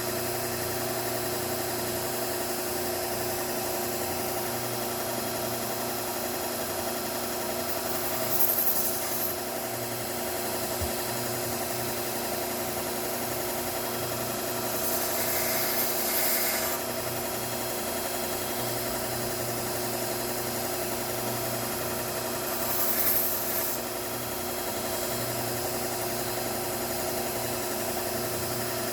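Bucktool slow-speed belt grinder running with a steady motor hum. Three brief grinding hisses come from a scissor blade drawn across the abrasive belt, the middle one the longest.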